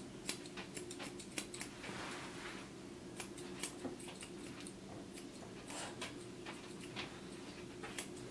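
Grooming scissors snipping through dog hair around a paw: quick, irregular, faint snips.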